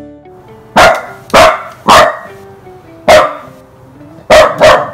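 A dog barking six times: three barks about half a second apart, a single bark, then a quick pair near the end, over quiet background music.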